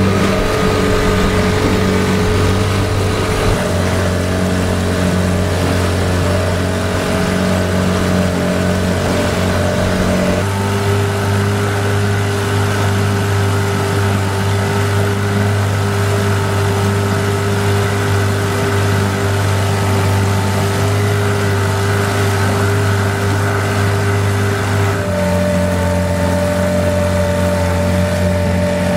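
A sailboat's inboard engine running at a steady speed while motoring. Its tone shifts abruptly three times, about 3, 10 and 25 seconds in.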